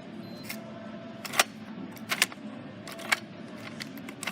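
About five sharp clicks roughly a second apart, over a steady background hum.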